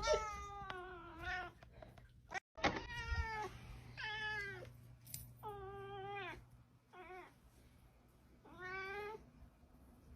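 A domestic cat meowing over and over: about six separate meows, each under a second long, with pauses between them.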